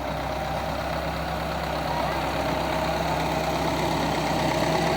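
Combine harvester's engine running steadily, slowly growing louder.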